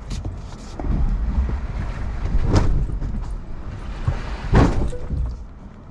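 Rivian R1T electric pickup crawling over rough dirt with a low rumble from the body and tyres, and two heavy bangs about two seconds apart, the second the louder, as the truck strikes a tree, denting its bumper and tailgate.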